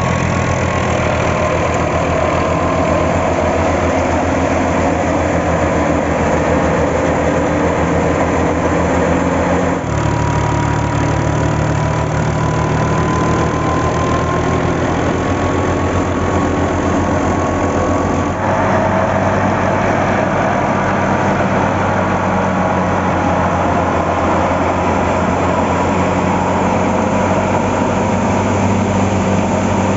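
An old Fiat 480 tractor's diesel engine runs steadily under load, turning a wheat thresher through a PTO shaft. A steady whine from the running thresher sits over the engine. The sound shifts abruptly about ten seconds in and again near eighteen seconds.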